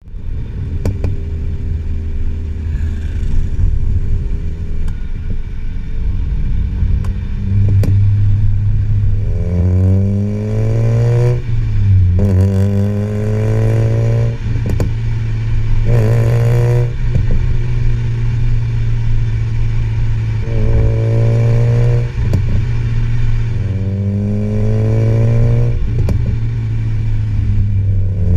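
Mazda RX-8's 1.3-litre 192 hp Renesis two-rotor rotary engine through a high-flow cat and stainless cat-back exhaust, revs climbing and dropping again and again, with sharp crackles and pops from the exhaust scattered between the rises.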